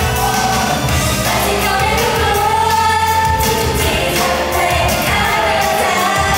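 Thai idol-pop song with female vocals sung into a handheld microphone over a steady beat, heard through a stage PA.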